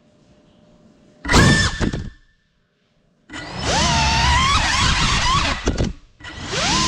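Small ducted FPV cinewhoop drone's brushless motors and propellers whining as the throttle changes: a short burst about a second in, then after a silent gap a longer run whose pitch rises and wavers, dipping briefly near the end.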